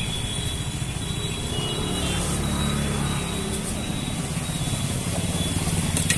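Roadside traffic noise: a motor vehicle's engine running close by as a steady low rumble, swelling through the middle, with a sharp click at the very end.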